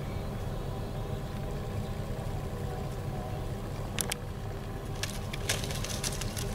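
Steady low rumble of an idling vehicle engine. A couple of sharp clicks come about four seconds in, and a quick run of clicks and crackles comes near the end.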